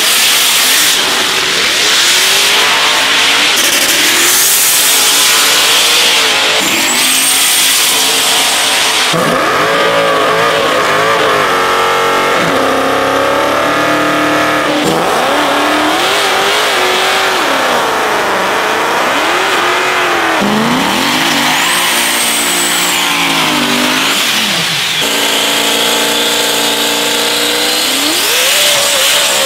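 High-performance drag cars' engines revving hard, their pitch rising and falling again and again, with the sound changing abruptly several times as one car's revving gives way to another's.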